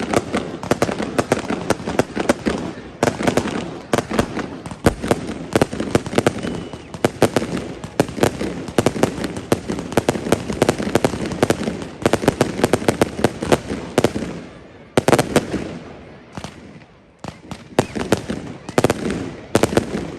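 Fireworks display: a dense barrage of bangs and crackles, many per second, easing briefly about three-quarters of the way through before picking up again.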